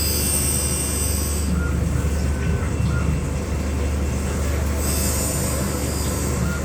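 Saw-blade sharpening machine running, grinding the carbide teeth of a TCT saw blade. It has a steady low hum, with a spell of high, hissing grinding at the start and another near the end.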